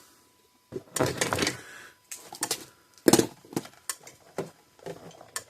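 Sharp, irregular clicks and knocks, among them the ticking of a repaired Parmak Solar Pak 12 fence charger firing its pulses, a sign that it is working again.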